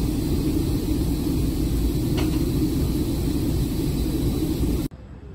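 BR Standard Class 4MT 2-6-0 steam locomotive standing with steam escaping: a loud, steady hiss and rumble that cuts off suddenly near the end.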